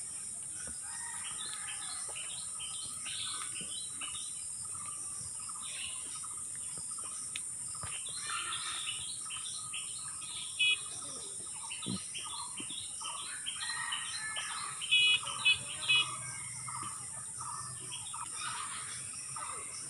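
Many small birds chirping in the trees, with a steady high-pitched hiss underneath. A nearby bird gives a few louder short calls about ten seconds in and again around fifteen to sixteen seconds.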